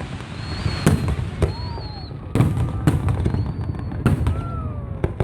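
Aerial fireworks bursting: about six sharp bangs at irregular intervals over a continuous low rumble, with faint tones gliding in pitch between them.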